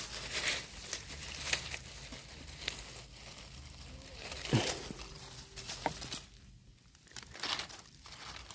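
Irregular rustling and crackling, with scattered sharp clicks and crinkles.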